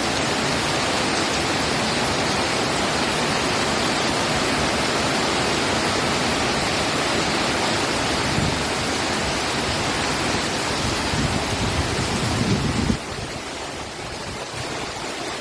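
Heavy monsoon rain pouring down in a steady, dense hiss. About 13 seconds in it cuts abruptly to a quieter, thinner hiss.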